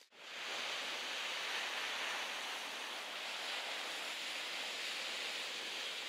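Small sea waves breaking and washing onto a shingle beach, heard as a steady hiss of surf.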